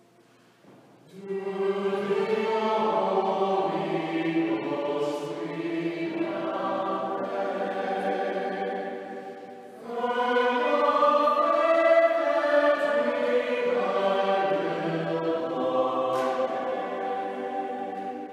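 Mixed choir of men and women singing a hymn in English, in two long phrases: the first starts about a second in after a brief hush, and the second follows a short dip about halfway through.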